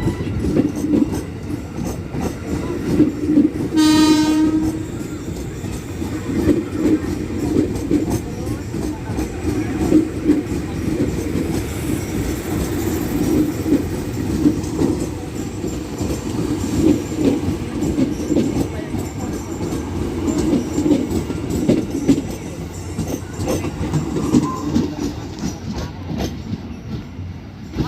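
Ex-JR 205 series electric commuter train running past over station points, its wheels clattering steadily over the joints, with one short horn blast about four seconds in.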